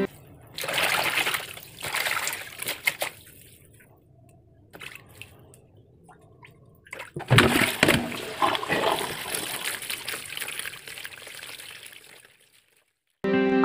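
Water from a tap splashing and sloshing in a plastic basin as hands rinse green onions. There are two louder spells of splashing, one starting about half a second in and one from about seven to twelve seconds, with quieter trickling between them.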